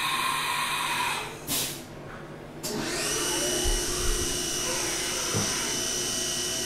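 CNC vertical machining center running, with a short hiss about a second and a half in. From about three seconds in, the spindle runs with a steady high whine over the spray of flood coolant as a spot drill spots the hole locations in stainless steel knife bar stock.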